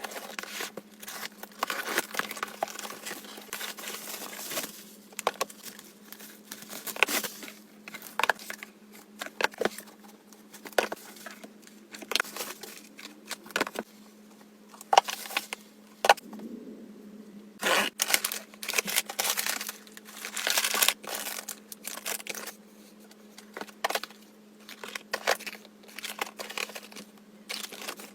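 Packaging being handled and opened: irregular crinkling, rustling and tearing with sharp clicks, over a steady faint low hum.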